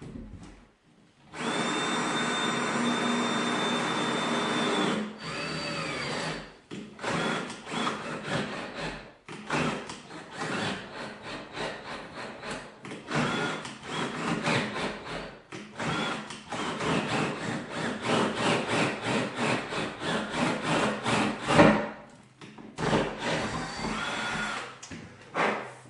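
Power drill boring a clearance hole: one steady run of about four seconds with a high motor whine, a brief faster spin, then many short stop-start bursts of the trigger for about fifteen seconds, and another short steady run near the end.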